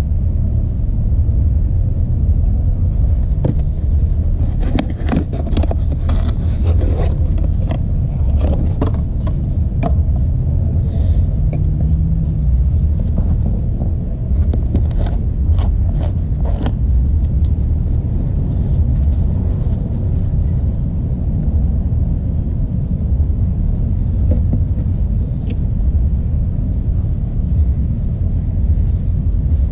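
A steady low rumble throughout, with scattered clicks and knocks in the first half from gloved hands handling a plastic oil bottle, its cap and a new spin-on oil filter.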